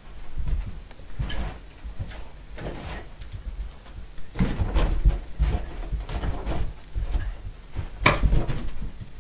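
Irregular soft bumps and knocks from a chihuahua puppy scampering and pouncing at a rubber balloon, with one sharper knock about eight seconds in as the balloon is batted against the door.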